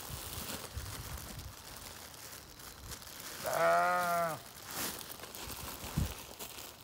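Clear plastic garbage bag stuffed with fresh-cut grass crinkling as it is squeezed and handled, with one drawn-out bleat about three and a half seconds in and a dull thump near the end.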